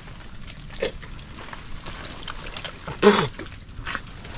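Wet mud and shallow water being stirred by hands, with small splashes and squelches while digging for clams. A short voice-like exclamation about three seconds in.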